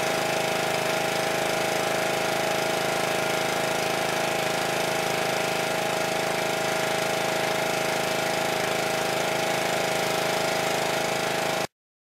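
Pressure washer running steadily under its small engine, with the hiss of the water jet spraying across brick pavers. It cuts off abruptly near the end.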